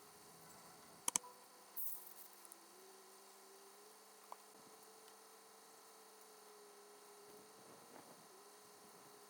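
Near-silent room tone with a faint steady electrical hum, broken by two sharp clicks about a second in and a brief rustle just after.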